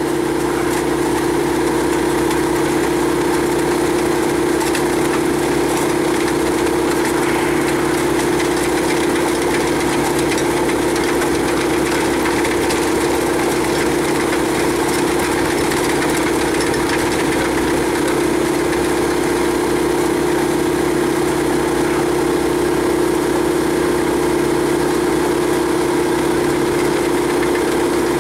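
Rock drill rig running steadily, its engine and hydraulic drive turning the drill steel slowly down through solid rock. A constant drone with one strong steady hum.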